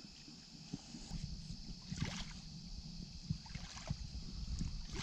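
Handling noise: a low rumble with scuffs and knocks as the camera is carried across a mud bank, growing louder from about a second in, over a steady high hiss.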